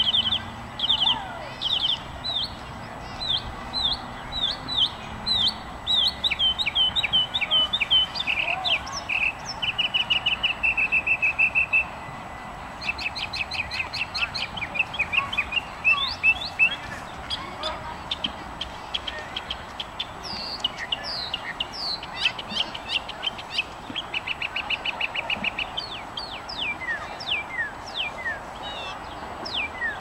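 Northern mockingbird singing: a long run of varied phrases, each repeated several times before switching to the next, from slurred whistled notes to a fast even trill and a quick buzzy chatter.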